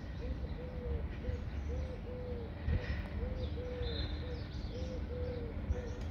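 Dove cooing over and over in an even rhythm, short and longer notes alternating about twice a second, with faint chirps from small birds and a low rumble underneath.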